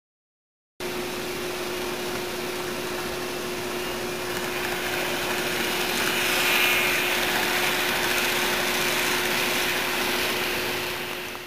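N-scale model train running on the layout track: a steady whirr of small motors and wheels with a constant hum underneath. It starts abruptly about a second in, swells to its loudest around six to seven seconds in as the train passes close, and fades out right at the end.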